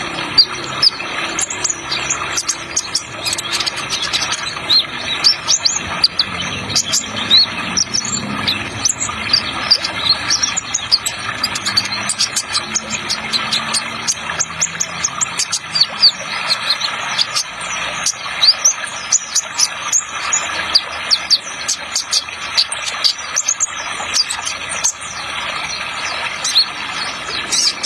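Kolibri ninja sunbird singing in rapid 'trotol' bursts, many short, sharp, high chirps in quick succession, over a continuous rushing water sound effect.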